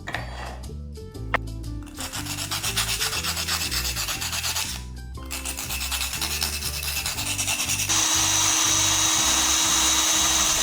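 A scallop shell being rubbed hard against an abrasive in quick, rapid strokes, with a short pause about halfway. About eight seconds in, this gives way to a steady, louder high-pitched whine typical of a small rotary tool drilling through the shell. Background music runs underneath.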